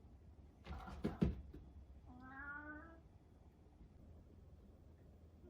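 A tabby cat meows once, a single drawn-out call starting about two seconds in. Just before it come a few sharp knocks or thumps.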